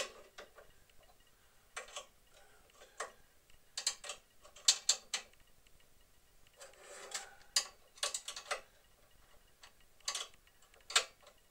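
Steel spanner clicking and clinking against a nut and the metal lathe housing in irregular bursts of sharp clicks, as a nut is tightened by hand.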